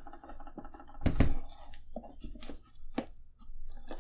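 Hands cutting and handling taped plastic packaging for miniatures: scratchy handling noise with a louder brief rustle about a second in, then a few sharp light clicks.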